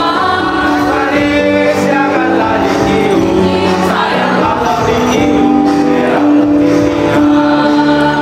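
A mixed choir of young men and women singing a song together, with long held notes.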